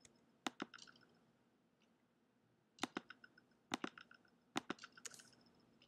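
Computer mouse clicks selecting faces, a handful of short sharp clicks, several coming in quick pairs, spread across a few seconds.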